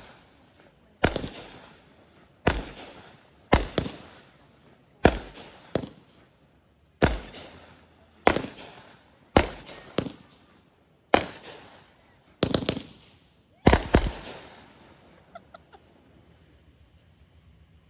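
Fireworks going off: a string of loud bangs roughly one to one and a half seconds apart, each trailing off in a long echo. Near the end the bangs come in quick doubles and triples, then a few faint crackles.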